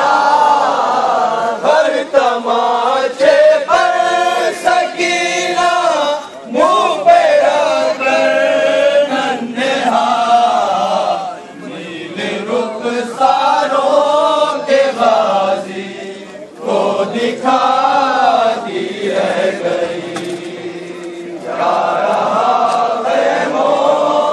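Many men's voices chanting a noha, a Shia mourning lament, together in long sung phrases with short pauses between them.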